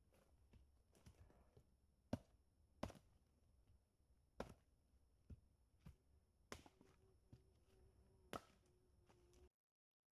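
Faint, sharp cracks and knocks of dry dead wood being broken up in the forest, about eight at irregular intervals, some with a slight ring. The sound cuts off abruptly near the end.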